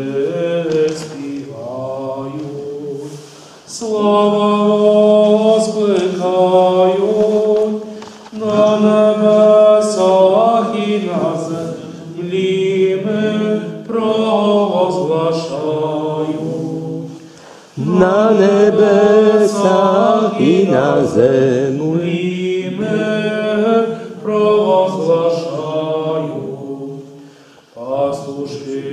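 A small group singing a Christmas carol without accompaniment, in long sung phrases with short breaks between them.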